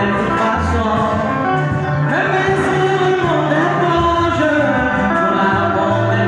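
Music: a gospel song with singing over held bass notes that change every second or so.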